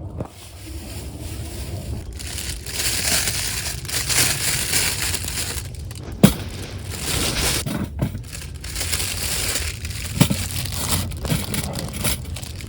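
Rustling and crunching in irregular bursts, with a few sharp knocks among them.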